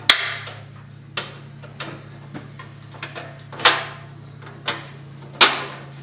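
Steel tubing being knocked and tapped together: a string of irregular metal clanks with a short ring after each, two of them louder, over a steady low hum.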